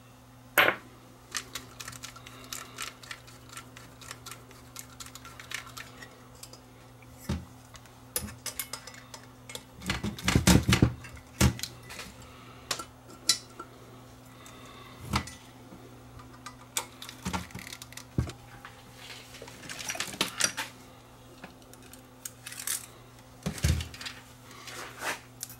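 Small parts and hand tools handled on an electronics repair bench: scattered light clicks and clinks, with a denser clatter about ten seconds in.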